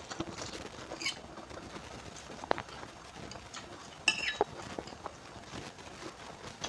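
Close-miked eating: chewing instant noodles and crunchy raw bean sprouts, with small wet mouth clicks throughout. A few sharp clicks stand out, the loudest about two and a half seconds in and a short cluster at about four seconds.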